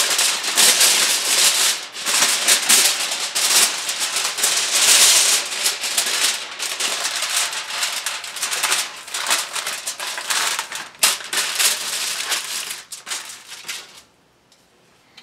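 Aluminium foil crinkling and crackling as it is folded and pressed tightly by hand around a rack of ribs. The rustling cuts off suddenly near the end.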